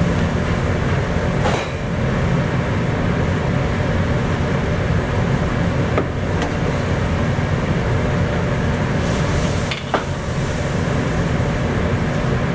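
Steady rumbling roar of a gas wok burner under a wok of boiling water, with three light knocks spread through it.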